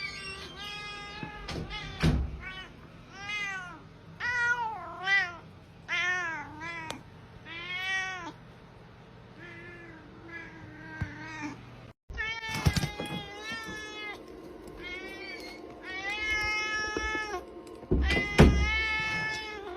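Domestic cat meowing over and over: a string of short meows that rise and fall in pitch, then longer, drawn-out meows after a break about twelve seconds in. A thump about two seconds in and a louder one near the end.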